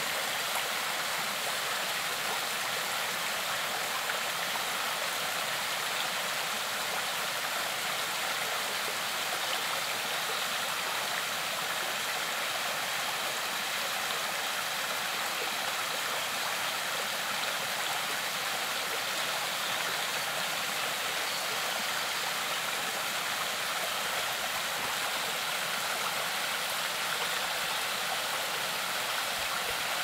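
Small stream sliding in a thin sheet down a sloping rock slab in a small waterfall: a steady, unchanging rush of water with little deep rumble.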